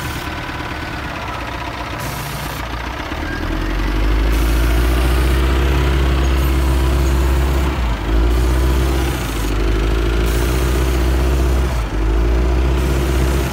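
A heavy vehicle engine running, picking up to a loud, steady high rev about three and a half seconds in, with two brief dips in the second half.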